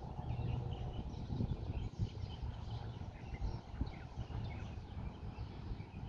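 Many birds chirping and calling in quick, scattered notes, over a low, gusty rumble of wind on the microphone.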